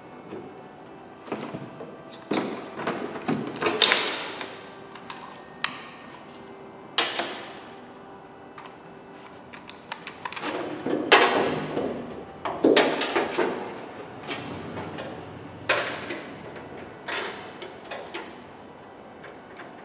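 Irregular knocks, clicks and clatter of hand tools and metal parts against a car door's sheet-metal panel as the door is taken apart, with a few louder bangs.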